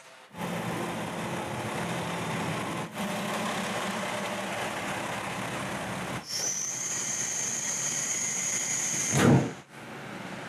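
Diesel railcar idling with a steady engine hum, heard on the platform and inside the car. About six seconds in a steady high whine starts and runs for about three seconds, ending in a short loud whoosh.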